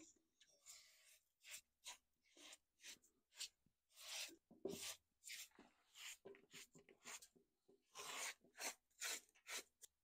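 Faint, irregular scrubbing and rubbing of a damp sponge wiping spilt wet concrete off the sides of a bucket, in short strokes that come in little clusters.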